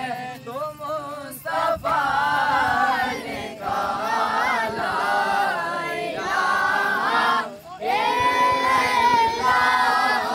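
A group of voices, boys among them, chanting devotional verses together in a sung, drawn-out melody, with a short break about three quarters of the way through.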